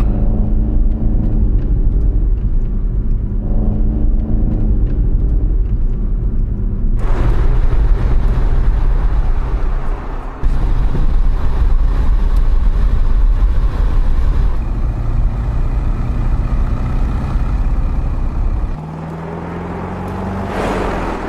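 The 2025 Mercedes-AMG GT 63 Pro's twin-turbo V8 running as the car is driven. It sounds muffled, with little treble, for the first seven seconds or so, then opens out into a fuller engine-and-road sound. Near the end it goes quieter, with a rising note.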